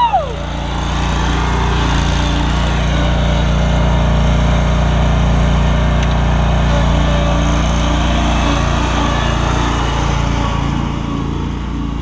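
Exmark Vantage stand-on mower's engine running steadily as the mower is driven across the lawn with its blades left off, fading near the end as it moves away.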